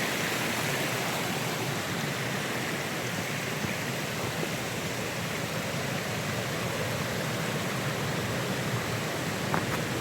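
Steady rushing of a waterfall and its small cascades, an even wash of falling water. A single short click or tap near the end.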